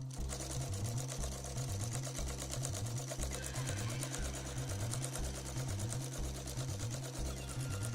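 THOR GC-1341 cylinder-arm walking-foot sewing machine running steadily, stitching with a fast, even ticking. It runs over background music with a repeating bass pattern.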